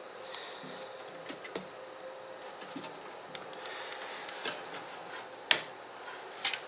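Light plastic clicks, taps and rustling of computer power cables being handled and a power connector pushed onto a drive inside a PC case, with one sharper click about five and a half seconds in and two more near the end.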